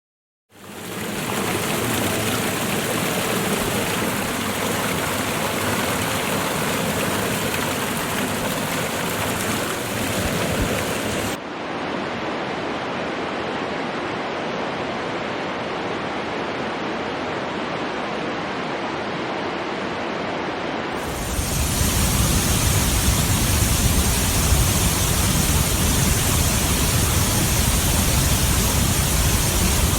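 Waterfalls rushing: a steady wash of falling water that changes abruptly twice, duller about 11 seconds in and louder and fuller about 21 seconds in.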